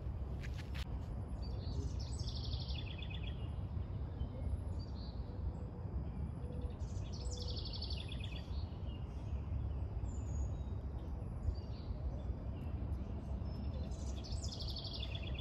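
A songbird sings a short, fast, descending trill three times, roughly every five or six seconds, over a steady low rumble.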